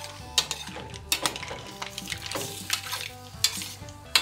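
Seafood being stirred in a stainless steel sauté pan: irregular clinks and knocks of the utensil and the mussel and clam shells against the pan, over a light sizzle.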